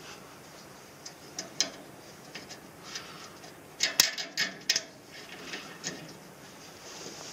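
A bundle of wires being pulled through plastic clips and cable ties on a metal frame: scattered clicks and rustles, with a quick run of sharper clicks about four seconds in.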